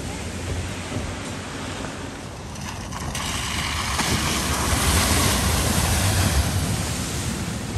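A vehicle driving through deep floodwater, with rushing, splashing water. The noise builds from about three seconds in, is loudest around five to six seconds, then eases off, over a steady low rumble.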